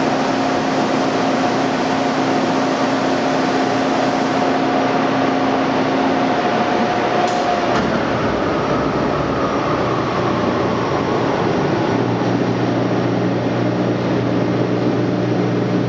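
Blanchard 26HD-48 rotary surface grinder being switched off: coolant splashing into the tank under the hum of the running machine. Its two steady tones drop out about six and seven and a half seconds in as the machine winds down, while the coolant keeps running and a lower hum comes in near the end.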